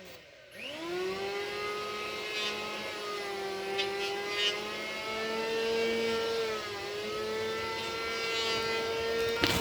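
A motor engine running steadily, revving up about half a second in and then holding, its pitch drifting slowly up and down.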